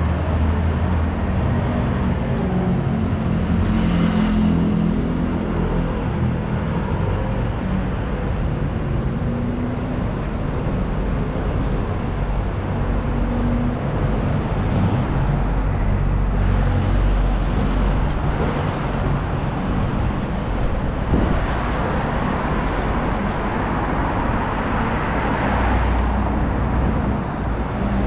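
Street traffic: a steady low engine rumble from road vehicles, with one vehicle swelling past a few seconds before the end.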